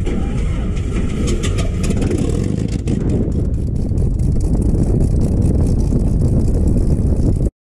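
Cessna 182T's six-cylinder Lycoming engine running on the ground, heard from an exterior camera under the fuselage as a loud, steady, rough rumble with heavy wind buffeting on the microphone. It cuts off abruptly near the end.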